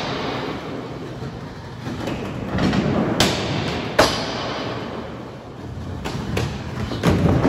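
Skateboard trucks grinding along the metal coping of a ledge, a steady scraping rumble broken by a few sharp clacks of the board against the edge in the second half.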